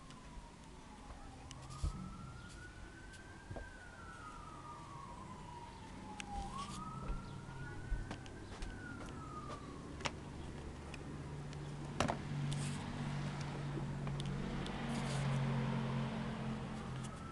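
A siren wailing, its single tone rising and falling slowly, about one sweep every two to three seconds. It breaks off partway through and comes back near the end. Meanwhile a low rumble with a hiss swells, loudest near the end, and a few sharp clicks are heard, one loud one about twelve seconds in.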